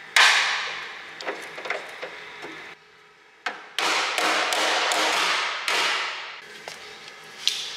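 Hammer blows on a steel sheet-metal repair patch clamped against a backing bar, folding the metal down to shape. A loud first strike and a few lighter taps, a short pause, then a quick run of about seven blows, each ringing on briefly.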